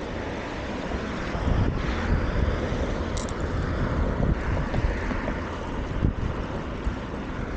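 Wind buffeting the microphone of a camera carried on a moving bicycle: a steady low rumble that grows gustier about a second and a half in. A brief high chirp sounds about three seconds in.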